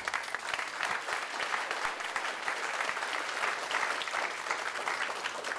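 Audience applauding: many hands clapping in a dense patter that dies down near the end.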